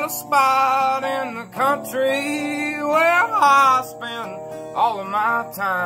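A man singing a country folk song in long, drawn-out lines over a resonator guitar.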